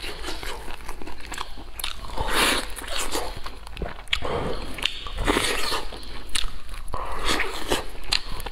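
Close-miked eating sounds: biting into, tearing and chewing braised meat on the bone, a string of sharp mouth clicks and noisy bites.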